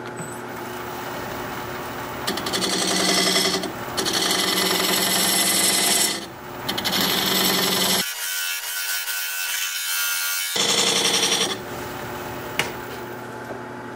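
Wood lathe running with a steady hum while a freshly sharpened diamond point tool cuts into the spinning live oak bowl blank. The cutting comes as several hissing, scraping passes a second or two long, then it quietens near the end.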